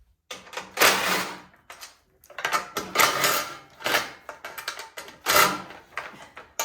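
Ratchet wrench clicking in several short bursts with pauses between them, backing out the bolts that hold the cover on a snowblower engine.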